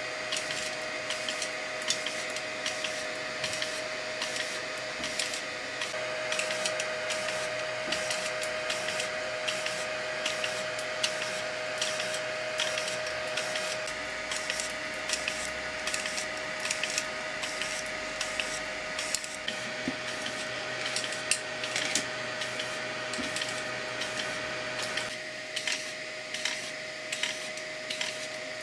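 3D printer filament extruders, a Bondtech BMG and an E3D Titan, driven by stepper motors that rapidly retract and re-feed filament over and over: a steady high stepper whine with many sharp clicks. About 25 seconds in, part of the sound drops away.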